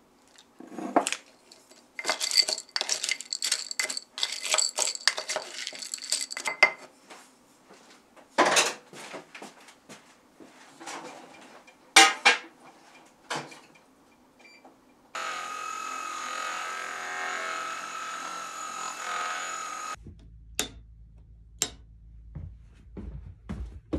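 Chopsticks stirring food in a ceramic bowl, a rapid run of clinks against the bowl for the first several seconds, then scattered clinks. Past the middle, a steady hissing noise runs for about five seconds, followed by a few light clicks.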